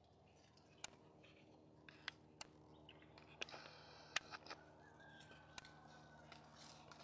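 Faint, scattered sharp clicks and crackles, as of a cat nosing and nibbling through dry twigs and leaf litter close by, over a near-silent background. Past the middle a faint thin tone holds for about a second and a half.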